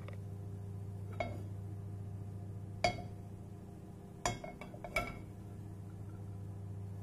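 Cookware being handled in the kitchen: a few sharp clinks of the pan and utensils, about a second in, near three seconds and twice between four and five seconds, over a steady low hum.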